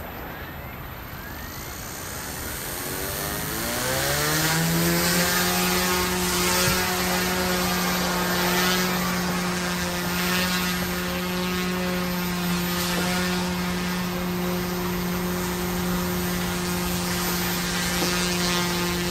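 OMPHOBBY M2 electric RC helicopter, with direct-drive motors on both the main and tail rotors, spooling up with a rising whine over the first few seconds. It then settles into a steady, even-pitched rotor buzz as it lifts off and hovers.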